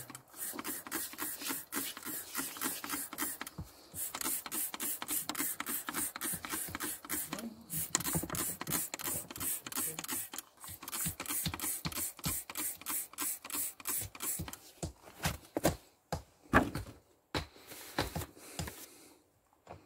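Plastic trigger spray bottle pumped rapidly, about five hissing spritzes a second, misting water onto rock. Near the end the spraying thins out and a few louder knocks stand out.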